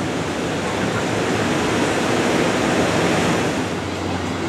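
Ocean surf washing in over a sandy beach: a steady rush that swells about two to three seconds in and eases off near the end.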